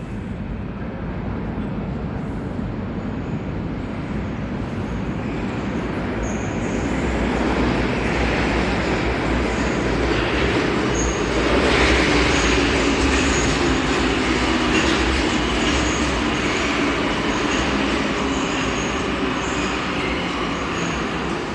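Metro train of 81-717.5M cars arriving at a station platform. Its rumble swells as it comes out of the tunnel and is loudest about halfway through, with a steady hum and repeated short high wheel squeals as it runs in along the platform.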